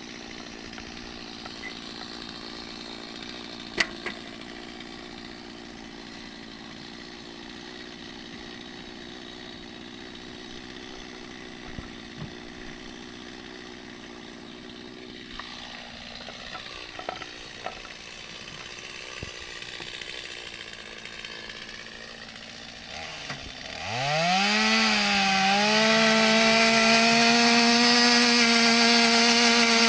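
Chainsaw idling steadily, with a few brief knocks. About 23 seconds in it is revved up, rising quickly in pitch and loudness, and held at full throttle, which is how the saw is kept before it is put into steel.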